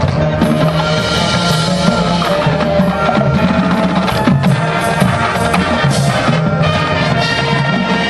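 Marching band playing its field show: brass chords held over a busy drum line, with frequent drum hits.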